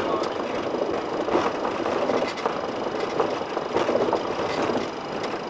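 Cockpit noise of a Boeing 737-500 rolling along the runway: its CFM56 engines running with a steady rumble, and the cabin rattling over the uneven runway surface.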